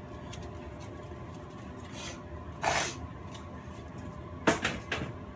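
Metal baking sheets handled on a kitchen counter: a brief rustle a little past halfway, then a few sharp metallic clatters near the end.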